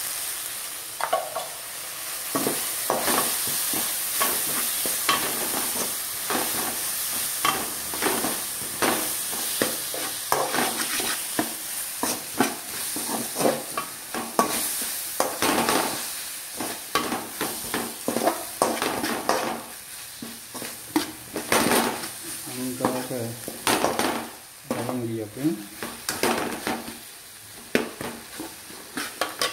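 Slotted metal spatula scraping and knocking against a metal pot, several irregular strokes a second, as shallots, chillies and spice powder are stirred in hot oil. A steady sizzle of frying runs underneath.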